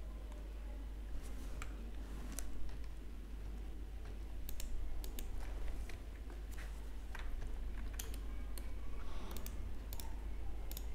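Computer mouse clicks and keyboard key presses, a dozen or so sharp irregular clicks over a steady low hum.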